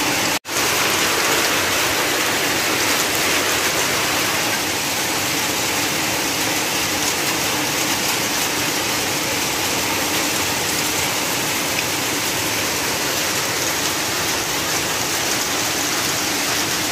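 Hailstorm with heavy rain: hailstones and rain pelting the ground and roofs in a steady, dense hiss. The sound drops out for an instant about half a second in.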